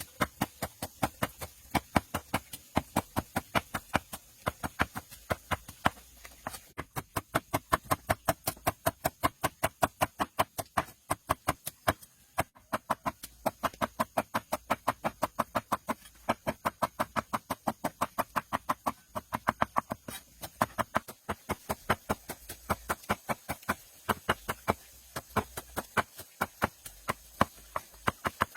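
A fast, steady series of sharp knocks or taps, about four to five a second, with a few short pauses.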